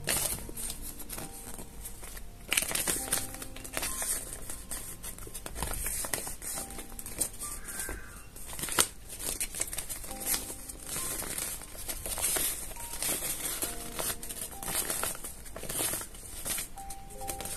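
Paper leaflet rustling and crinkling as it is unfolded and handled, in many irregular short crackles, with quiet background music.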